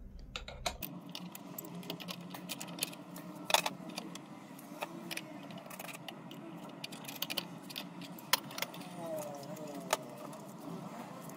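Light metallic clinks and clicks of flat steel spanners on the spindle and collet nut of a Proxxon PF230 mill/drill head as the end mill is loosened and taken out. The sharpest click comes about three and a half seconds in.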